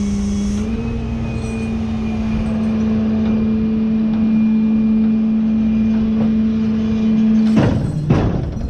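Rollback tow truck's engine and hydraulic pump running with a steady hum at one pitch, which steps up slightly a little under a second in. It cuts off about seven and a half seconds in, followed by a few sharp metallic clunks.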